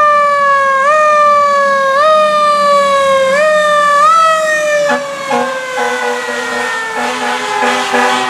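Fire truck's siren wailing, its pitch jumping up sharply and sliding slowly down about once a second, then winding down in one long falling tone. Short low horn blasts sound in the middle of the wind-down.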